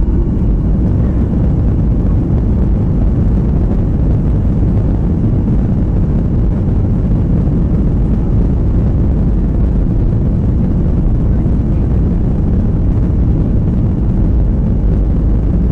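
Boeing 737-800's CFM56-7B jet engines at takeoff thrust, heard inside the cabin: a loud, steady low rumble as the airliner lifts off and climbs.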